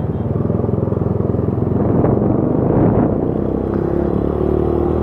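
Motorcycle engine running as the bike rides along the road, heard from the bike itself; it grows a little louder over the first two seconds, then runs steadily.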